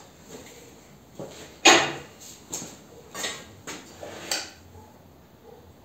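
A series of short metal clicks and clanks, about eight, the loudest about two seconds in, from parts being handled and fitted at a lathe's three-jaw chuck while the machine is stopped.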